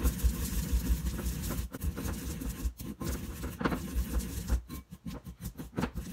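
Wooden pestle grinding sesame seeds in a ridged ceramic suribachi mortar: a continuous gritty rubbing and crunching as the seeds are crushed against the grooves, turning choppier near the end.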